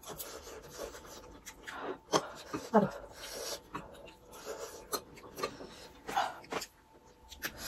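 Two people eating noodles and rice at close range: chewing and mouth noises, scattered short clicks, and breathing, with a couple of brief murmurs of voice.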